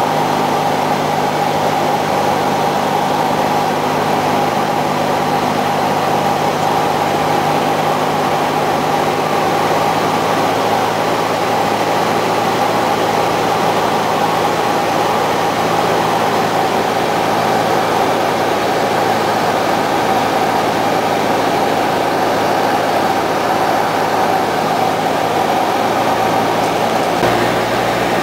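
Steady cabin drone of a high-wing light aircraft's engine and propeller in flight, with airflow noise mixed in. The engine note shifts slightly about a second before the end.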